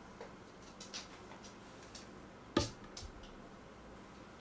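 Faint eating noises from a big mouthful of fried rice taken off chopsticks: scattered small mouth clicks, with one sharper knock a little past halfway.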